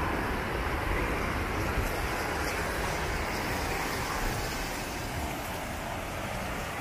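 Water spilling over a low concrete weir in a wide sheet: a steady rushing noise of a small waterfall.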